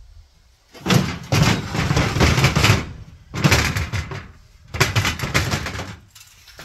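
Aluminium ATV loading ramp dragged out of a pickup bed over the other ramp, scraping and rattling metal on metal in three bouts.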